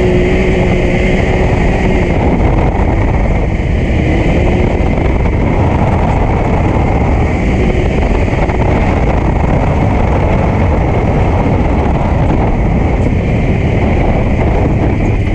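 Can-Am Maverick X3 XRS Max side-by-side driving along a rough dirt track. Its turbocharged three-cylinder engine holds a steady pitch for about the first two seconds. After that it is mostly covered by a loud, even rushing noise of wind and rough ground.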